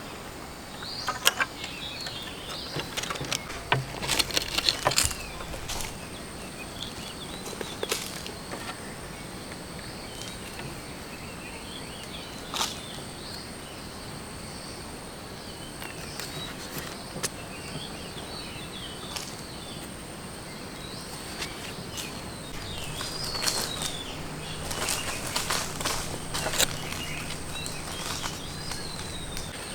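Outdoor ambience of birds chirping over a steady high-pitched insect tone, broken by scattered sharp clicks and knocks, clustered in the first few seconds and again about 24 seconds in.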